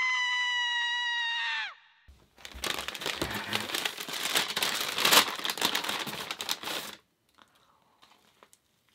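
A held electronic tone from the intro sting, bending down and cutting off within the first two seconds. Then a paper pastry bag is crinkled and rustled for about four and a half seconds as a doughnut is pulled out of it, and it goes nearly quiet near the end.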